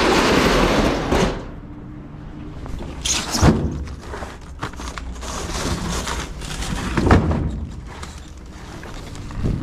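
A beverage truck's roll-up bay door rattling along its track for about a second, followed by shrink-wrapped cases of bottled drinks being handled, with two thuds as cases are set down, about three and a half and seven seconds in.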